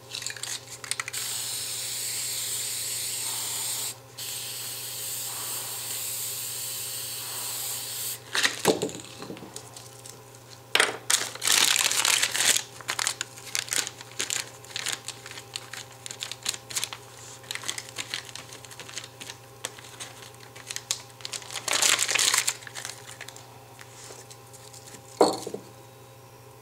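Aerosol spray paint hissing from a can in two long sprays, with a short break between them. After that come short bursts of paper crinkling and tearing as crumpled paper is worked over the wet paint.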